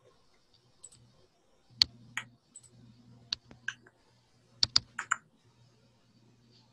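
Scattered sharp clicks, a dozen or so in two short irregular runs, about two seconds in and again near five seconds, over a faint steady low hum.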